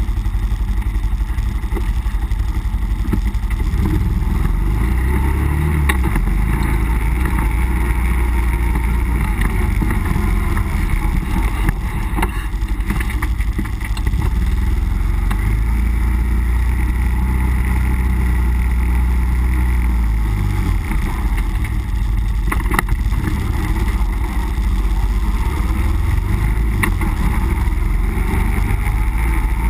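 Nissan Pathfinder's engine running under load off-road, a steady low drone whose pitch shifts a few times, with occasional sharp knocks and rattles from the vehicle bouncing over rough ground.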